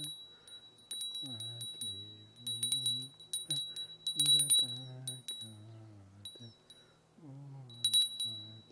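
A small bell rung in repeated bursts of quick strikes, each leaving a high sustained ring, with a man's low singing voice in the gaps. The bell bursts come about a second in, around two and a half to five seconds in, and again near the end.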